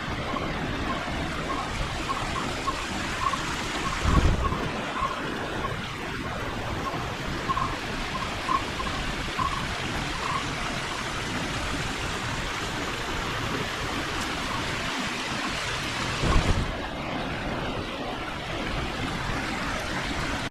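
Garden water fountains spraying and splashing, a steady rush of water, with a faint repeated chirping during the first half.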